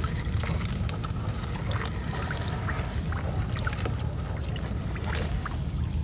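Water trickling and dripping off a wet gill net as it is hauled over the side of a small wooden outrigger boat, with many small scattered ticks and splashes over a steady low rumble.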